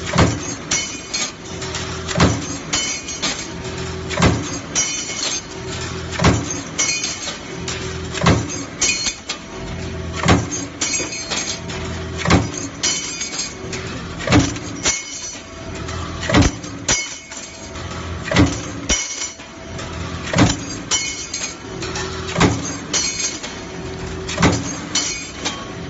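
Punch press running a hinge cutting die: a sharp metal stamping impact about every two seconds over the steady hum of the press. Stamped steel hinge blanks clink as they drop onto the pile between strokes.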